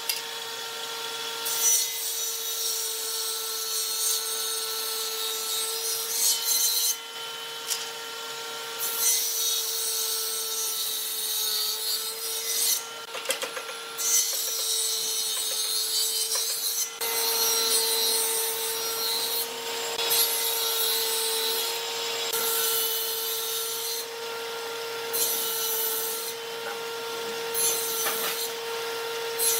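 Table saw of a Hitachi combination woodworking machine running with a steady hum while its blade cuts wooden pieces fed through on end. The higher noise of the cut stops briefly between passes, several times over.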